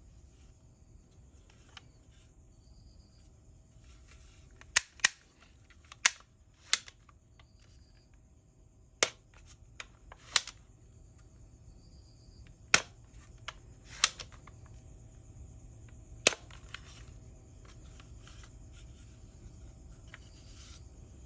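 A toy gun firing about nine sharp shots at uneven intervals, with a few fainter clicks between them; the shots start about a quarter of the way in and stop a little past the middle.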